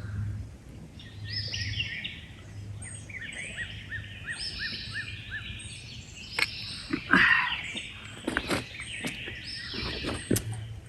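Songbirds singing, repeating short high phrases, one with a quick run of rising notes. A few sharp clicks come in the second half.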